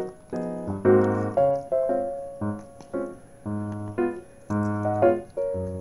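Background music: a light keyboard tune, its notes and chords struck about twice a second.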